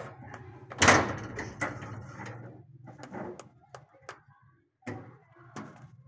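Irregular clicks and scrapes of an Alexandrine parakeet's beak pecking and gnawing at a brick wall, with one loud knock about a second in.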